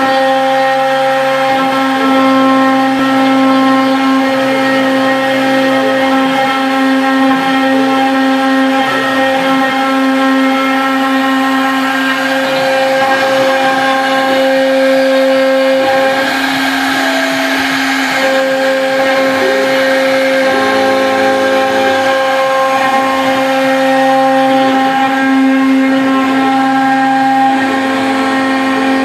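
CNC router spindle running steadily with a high whine as a V-bit engraves letters into hardwood. Lower motor tones shift in pitch and stop and start every second or two as the cutting head moves between strokes.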